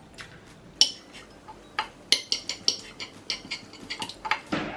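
A metal utensil clinking against a dish: one sharp clink about a second in, then a quick run of clicks and taps.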